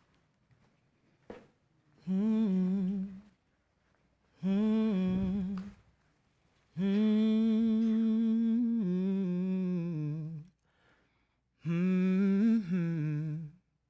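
A man humming a slow, wordless tune in four held phrases with pauses between them. The longest phrase, in the middle, steps down in pitch partway through.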